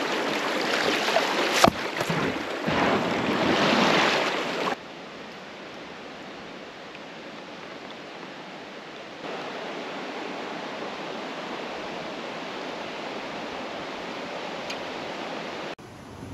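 Creek water rushing loudly over a rocky riffle around a kayak, with one sharp knock about two seconds in. It then gives way to a softer, steady rush of water.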